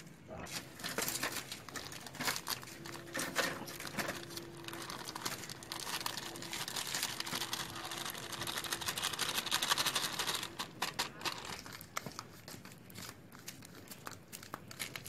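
Plastic food packet crinkling and rustling as flour is shaken out of it into a steel bowl: a dense run of small crackles that thins out after about eleven seconds.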